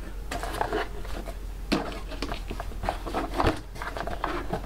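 Cardboard and paper rustling and scraping, with scattered light knocks, as a shipping box and its paper inserts are handled.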